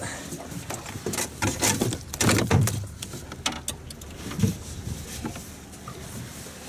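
Irregular knocks, scrapes and clatter in a small fishing boat as a fish is brought in with a landing net, busiest in the first half, over a low steady rumble.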